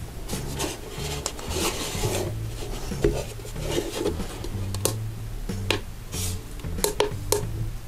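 Background guitar music, with rubbing and a few sharp clicks and knocks as the metal case of a UYUE 948S+ screen separator is handled and turned over in the hands.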